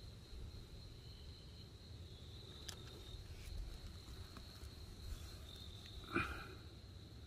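A night insect trilling steadily in one unbroken high tone, over a low rumble of handling noise. About six seconds in, one short, louder sound stands out.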